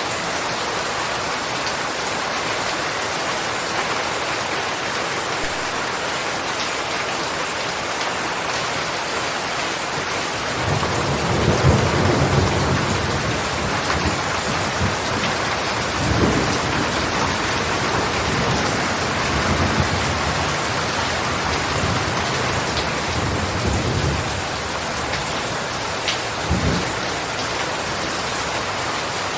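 Steady heavy rain falling, with low rolling thunder rumbling in from about ten seconds in and swelling several times before fading near the end.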